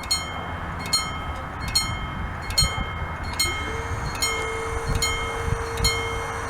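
Italian level-crossing warning bell striking about once every 0.8 s, each stroke a short metallic ring, warning that a train is approaching. A steady hum comes in about halfway through.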